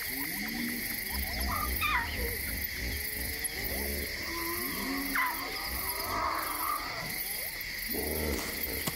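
A lone lion cub calls several times in short rising-and-falling calls over a steady, shrill night chorus of crickets. A low rumble comes in twice.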